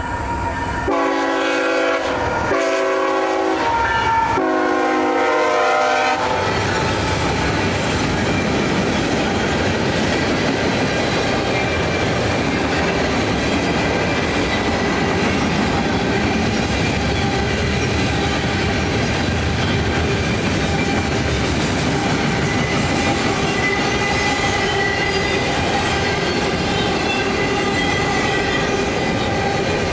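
Diesel locomotive horn on a CSX freight train led by ET44AH locomotives sounds three blasts over the first six seconds. The train's cars then roll past with a steady rumble and clickety-clack of wheels on the rails.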